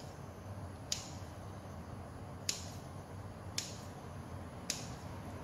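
Scissors snipping cuts into baguette dough: four short snips of the blades closing, roughly a second apart.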